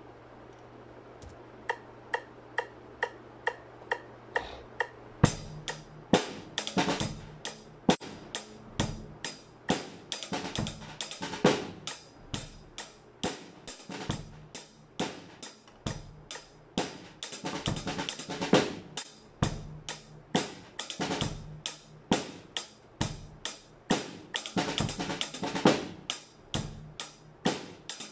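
A metronome clicking at 135 beats a minute, alone for the first few seconds. Then a snare drum played with wooden sticks comes in over the click: 5- to 13-stroke rolls, in time with the click.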